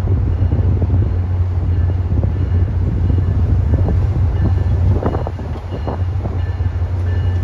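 Acela high-speed trainset rolling slowly into the station, a steady low rumble, with wind buffeting the microphone.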